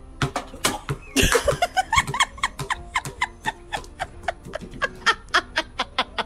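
A person laughing hard in a long run of rapid "ha" bursts, about four a second. A loud thud comes about a second in, just as the laughter takes off.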